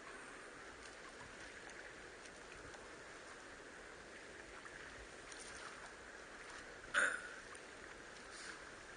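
Steady noise of water around a small boat, with one sharp knock about seven seconds in.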